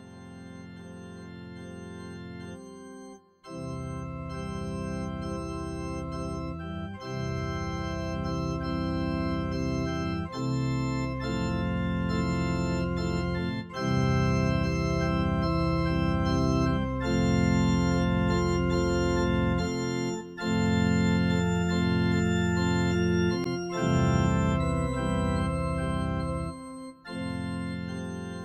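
Organ music playing sustained chords that change every few seconds, with brief breaks between phrases; it grows louder about halfway through.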